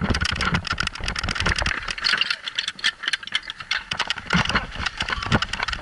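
A portable fire pump's engine running loudly, mixed with the rapid, irregular thumps and rattle of running footsteps and gear on a helmet-mounted camera.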